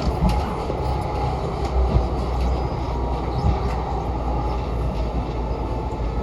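Class 357 Electrostar electric multiple unit running, a steady low rumble with a few sharp knocks from the wheels and a faint steady whine.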